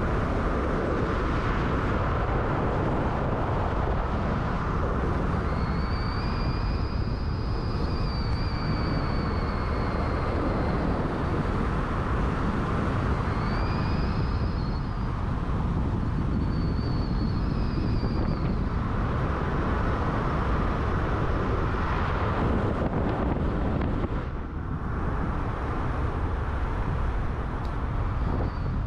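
Steady road and engine noise of a car driving down a mountain road. A few faint high squeals rise and fall about a third and halfway through.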